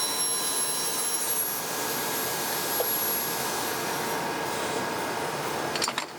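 Steady machinery noise, with a thin high whine that fades out about two seconds in and a few light clicks near the end.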